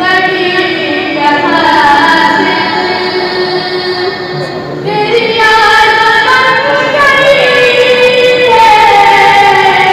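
A boy's solo voice singing a hamd, an Urdu hymn in praise of God, into a microphone, with long held notes that glide between pitches. He pauses briefly about halfway through, then goes on.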